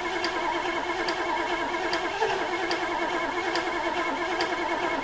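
Triumph Stag 3.0 V8 engine running steadily just after being started, with a light, regular tick a little more than once a second.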